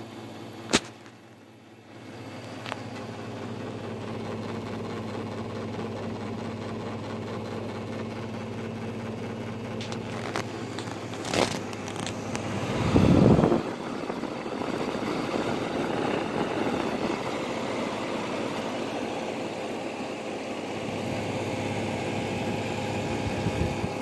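Frigidaire portable dehumidifier clicking on, then its fan and compressor starting up over a couple of seconds and running with a steady hum. About halfway through there is a short, louder rustling burst.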